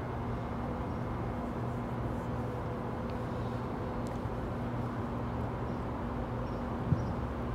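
Steady low electric hum and rumble of a Metro-North M8 electric train pulling away from the station, with one short tap near the end.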